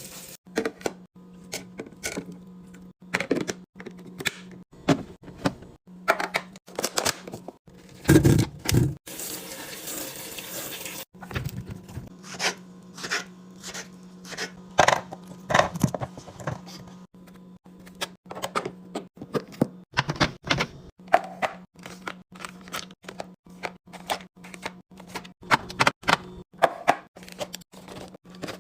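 Snack packages and containers being handled and set into a fridge: many irregular small clicks, taps and knocks, with a louder rustling stretch about eight to eleven seconds in, over a steady low hum.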